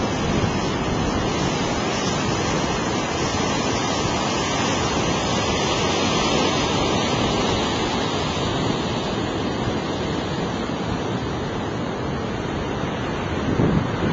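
Steady rush of breaking surf, with wind on the microphone.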